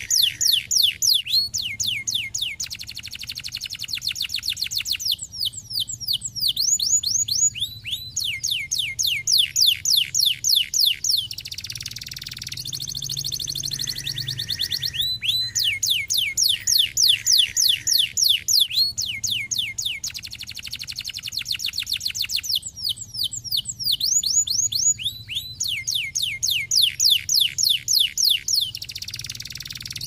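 Domestic canary singing: fast trills of rapidly repeated falling whistled notes, about eight a second, alternating every few seconds with buzzier rolling passages.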